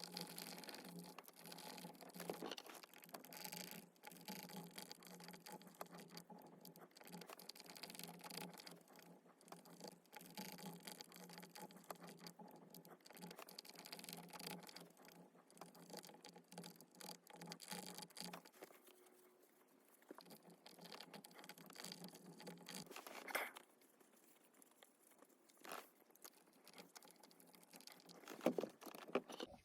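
Faint, rapid rubbing and scratching as the sticky soft-touch coating is scrubbed off the plastic steering-wheel buttons. The scrubbing dies down about two-thirds of the way through, and a few light clicks follow near the end.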